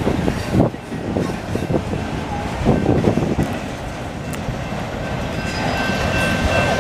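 A freight train of auto rack cars rolling past, its wheels clattering and knocking over the rail joints. The train rumbles steadily, and a faint high steady squeal joins in the second half.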